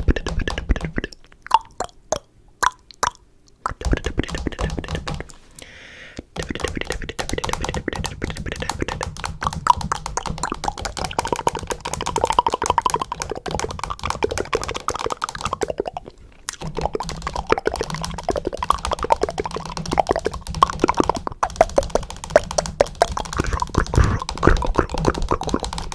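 Rapid clicking and popping sounds, a few separate clicks at first, then dense, fast runs of clicks broken by two short pauses.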